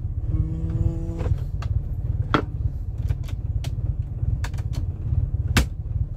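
Toyota Starlet's 1.3-litre EFI four-cylinder engine idling, heard as a steady low rumble inside the cabin. Over it come about eight sharp, irregular clicks as dashboard switches and buttons are pressed.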